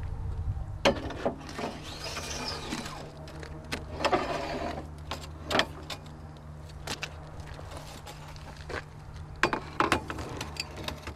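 Dando Terrier drilling rig's engine running steadily, with steel casing tubes being handled: sharp metal clanks and knocks several times, the loudest about a second in, halfway through and near the end, and stretches of scraping as the tubes slide against the rig.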